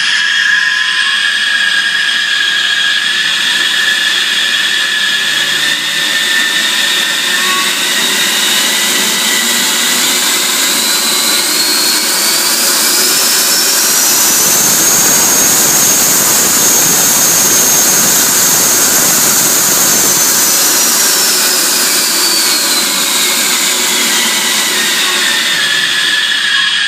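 Model F-18 jet's sound board playing a jet-turbine sound together with its Vasafan electric ducted fan. A whine climbs steadily for about ten seconds, holds at a high pitch with a heavy rush of air for several seconds, then winds back down near the end as the throttle comes up and back.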